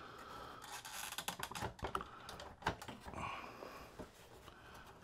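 Faint, irregular clicks and light scraping of a circuit board being worked loose from the plastic housing of a 1990–96 Corvette instrument cluster, with a sharper click a little past halfway.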